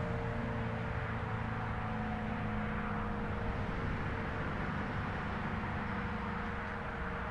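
ACA P-15 Penetrator outdoor warning siren (9/12 port, single-phase) sounding its full-alert steady tone, a shrill chord of several notes held at a constant pitch, over a steady rushing noise.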